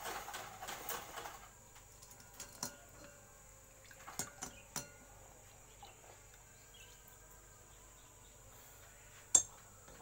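Small metal parts of a dismantled refrigerator compressor being washed by hand in gasoline in the compressor's steel shell: liquid sloshing for the first second or so, then scattered metal clinks as parts knock together and against the shell, with one sharp, loud clink about nine seconds in.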